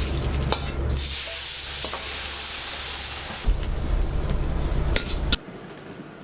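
Food sizzling in hot oil, with a few sharp clicks of stirring; the sizzle is loudest in the first half and cuts off abruptly about five seconds in.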